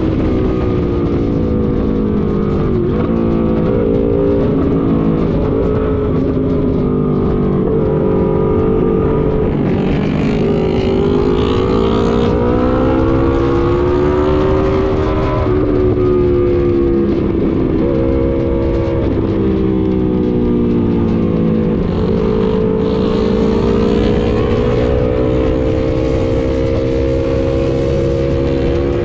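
Motorcycle engine running at road speed, its pitch slowly rising and falling as the throttle is opened and eased, over a steady rush of wind and road noise.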